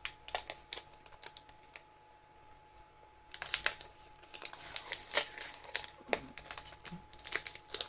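Hands handling plastic packaging: irregular light clicks and taps, sparse at first and coming thick and fast from about three seconds in, as the wrapping is worked at to get it open.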